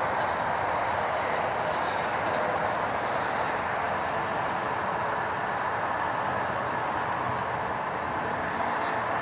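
Steady rolling noise of a freight train's tank cars moving away down the track.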